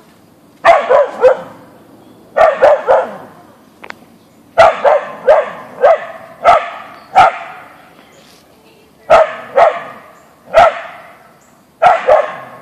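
A husky-mix dog barking at a deer in short bursts of a few barks each, with pauses of a second or two between bursts.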